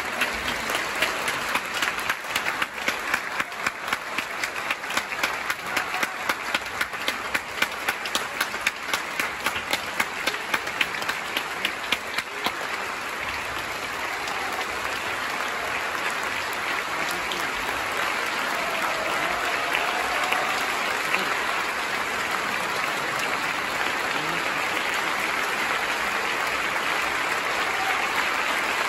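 Concert-hall audience giving a standing ovation. Sharp individual claps stand out close by for about the first twelve seconds, then settle into a dense, even wash of applause.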